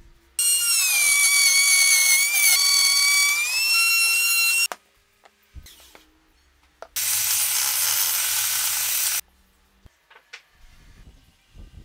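Electric power tool running: a high motor whine that dips in pitch, as under load, and then rises again, for about four seconds. After a short pause comes about two seconds of rougher, hissing tool noise without the whine.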